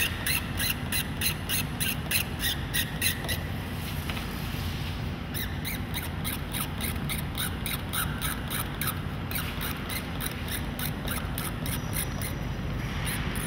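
Rhythmic scratching of a fine retouching tool on the painted canvas surface, about four short strokes a second. It stops for about a second and a half a little over three seconds in, starts again, and grows fainter toward the end, over a steady low hum.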